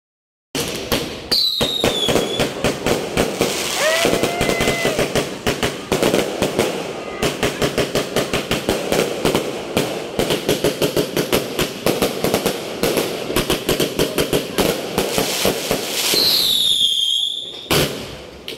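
Fireworks going off in a dense, continuous run of sharp pops and crackles from multiple shots fired in quick succession. A whistling tone falls in pitch about a second and a half in, and another whistle sounds near the end.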